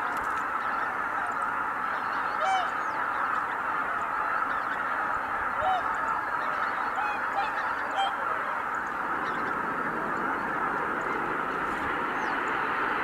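A huge flock of greater white-fronted geese calling as it flies out from the roost. Many birds are honking at once in a continuous din, with single nearer calls standing out now and then.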